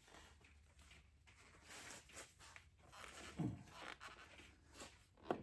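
Faint rubbing and scraping of a rubber fuel hose being worked by hand onto a tractor's fuel feed line, with a brief low grunt about three and a half seconds in and a sharp click near the end.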